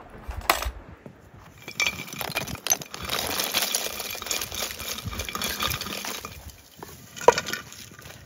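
Lump charcoal poured from a metal pail into a clay brazier, the pieces clattering and clinking for several seconds, with one louder clink near the end.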